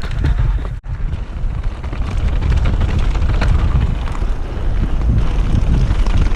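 Wind buffeting the microphone of a camera riding down a mountain bike trail at speed, over a low rumble and constant clatter of the bike on rough, rocky ground. The sound cuts out for an instant just under a second in.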